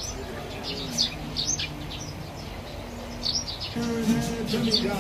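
Green parakeet giving short, high chirps, several in quick clusters, over low steady tones that grow louder near the end.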